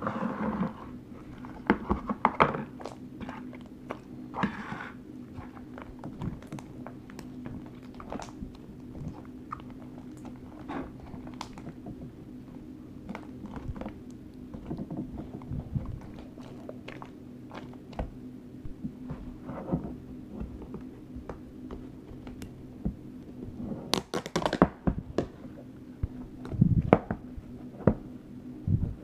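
Slime being squished, stretched and kneaded by hand, giving many irregular sticky clicks and pops, with a louder squelching burst about three quarters of the way through and a few soft thuds near the end.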